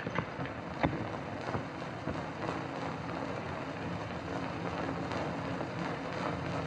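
Steady hiss and crackle of an old 1930s optical film soundtrack, with one sharp knock just under a second in.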